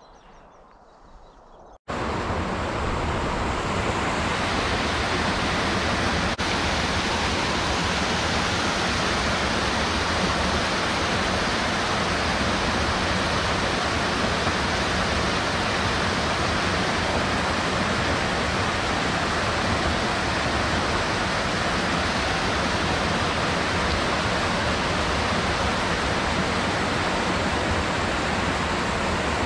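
Water gushing through a canal lock's wooden gates into the stone lock chamber: a steady, loud rushing that starts suddenly about two seconds in, after faint open-air quiet.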